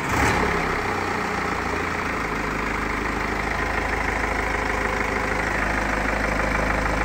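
BMW TwinPower Turbo engine just after starting, running slightly unsettled for the first second or two, then settling into a steady idle.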